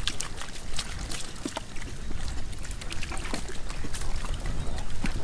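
Catfish splashing and slapping in shallow muddy water as they are grabbed by hand: irregular wet splashes and clicks.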